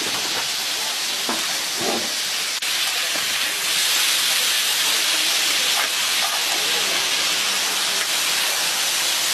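Kielbasa sausages and onions sizzling on a hot flat griddle, a dense steady hiss of fat and steam that grows louder a few seconds in.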